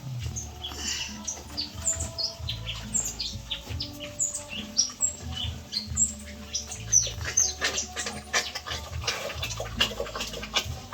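Young piglets squeaking in many short, high chirps over a low rumble, with scattered clicks.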